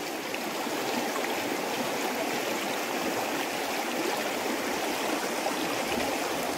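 Shallow creek running: a steady rush of flowing water.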